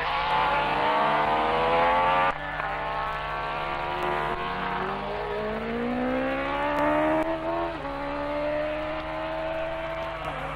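Racing sidecar outfits' engines at full throttle, rising in pitch as they accelerate and dropping at gear changes. The sound cuts abruptly about two seconds in, then one engine climbs steadily in pitch for several seconds before changing again near the end.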